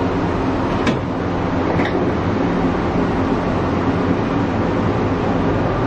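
Steady running rumble and hum inside the cabin of a driverless, rubber-tyred, cable-hauled people-mover train in motion, with a couple of light knocks about one and two seconds in.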